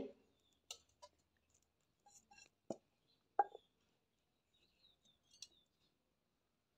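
Mostly quiet, with a few faint clicks and two soft knocks less than a second apart around the middle as a nonstick kadhai is set down and adjusted on a clay wood-fired chulha.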